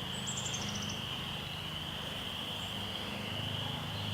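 Steady chorus of crickets: a continuous high shrill trilling, over a low steady hum. Near the start there is a brief, very high run of short notes falling in pitch.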